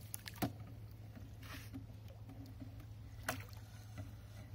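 Water sloshing around a landing net in a lake margin as a carp is released, with two sharp knocks, one about half a second in and one about three seconds in.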